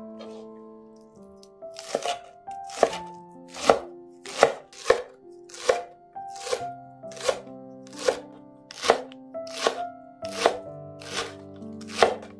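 Knife chopping food on a cutting board in slow, even strokes, a little more than one a second, starting about two seconds in.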